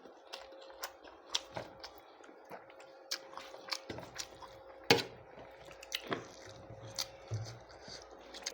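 Close-miked wet chewing and mouth smacks of someone eating lung with rice: scattered sharp, wet clicks, the loudest about five seconds in, over a faint steady hum.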